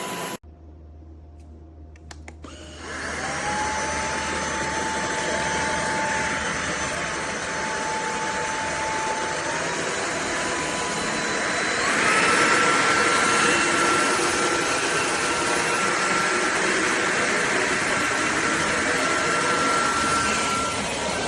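Cordless stick vacuum motor starting up about three seconds in after a brief lull, then running with a steady whine and airflow rush. Its pitch steps up slightly near ten seconds and jumps to a higher, louder whine about twelve seconds in.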